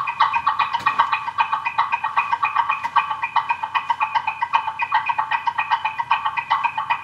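Fast, even, bird-like chirping chatter, about eight short pulses a second at a steady pitch.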